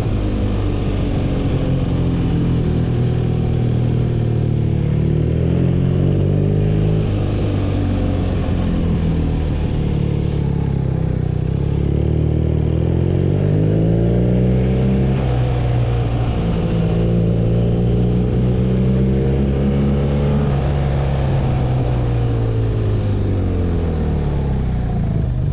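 BMW R nineT's air-cooled boxer twin under way, heard while riding. Its engine note climbs and drops several times as the throttle opens and closes.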